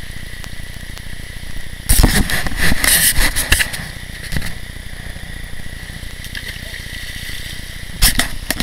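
Shallow rocky river running steadily, broken by loud rough bursts of noise for about two seconds starting two seconds in, and again near the end.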